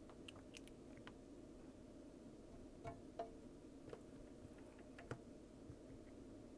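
Near silence: a faint steady hum with a handful of faint light ticks, from tweezers and a soldering iron tip touching a metal battery contact tab as it is heated off its pad.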